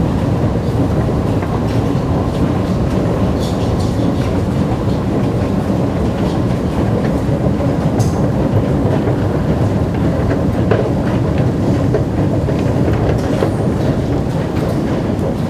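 Steady low rumble of an underground MRT station, running on evenly while riding down the escalator and walking along the passage, with a few faint clicks.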